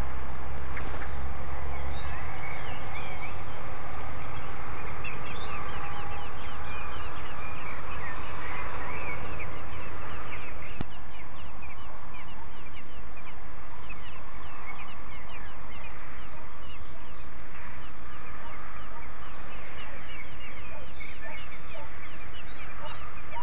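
Many quick, thin bird chirps over a steady hiss, with a single click about eleven seconds in.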